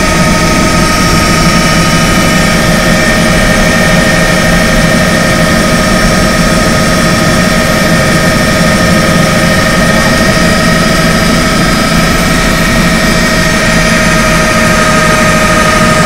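Helicopter in flight heard from inside the cabin: a loud, steady drone of engine and rotors with a steady whine at several pitches over a low rumble.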